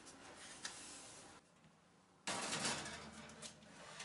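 A metal baking tray scraping and clicking as it is slid onto the wire rack of a hot oven. The sound starts suddenly a little over two seconds in and fades over about a second, after quiet handling noise.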